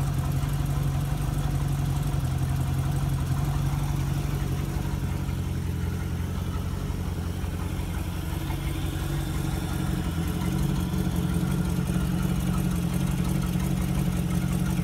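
Pleasurecraft Marine (PCM) inboard boat engine idling steadily.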